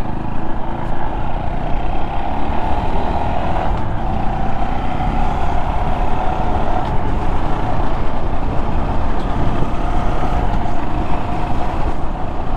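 Honda Monkey 125's single-cylinder engine running at a steady road speed, its note wavering only slightly, under heavy low rumble of wind and road noise.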